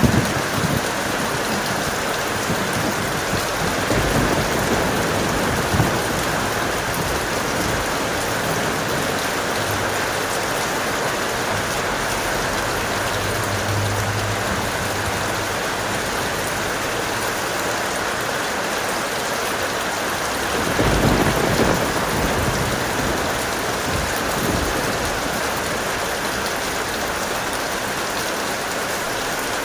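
Heavy rain falling steadily as a constant hiss. Low thunder rumbles come through a few times; the strongest swells about two-thirds of the way through.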